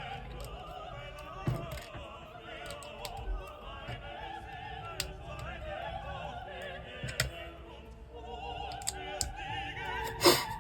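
Background music with operatic singing, under scattered sharp clicks of LEGO plastic bricks being handled and pressed together; the loudest click comes near the end.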